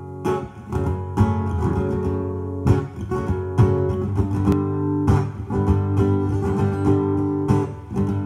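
Background music on acoustic guitar, strummed and plucked chords ringing on.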